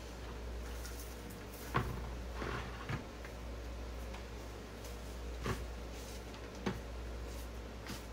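A few separate light knocks and rustles, about five in all, over a steady low hum.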